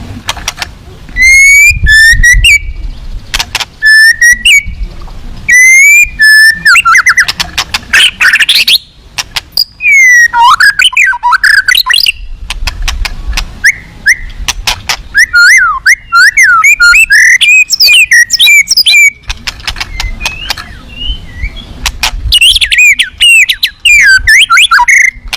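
White-rumped shama (murai batu) singing loudly in varied bursts: whistled notes with quick rising and falling glides mixed with rapid clicking and chattering phrases, in the full, fill-in-rich song of a bird in top singing form. The song is loud enough that the recording clips.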